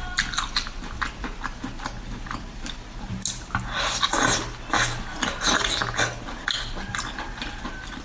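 Close-up eating sounds of a person biting and chewing seafood, with many sharp clicks and crunches. The loudest stretch comes about three to five seconds in.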